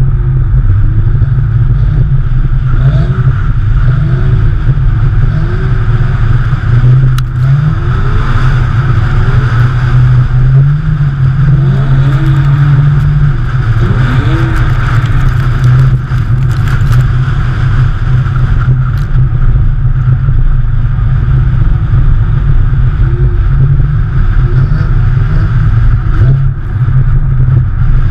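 Porsche 911 flat-six engines running hard while drifting on snow, the revs rising in short sweeps every second or two, over a loud steady low rumble.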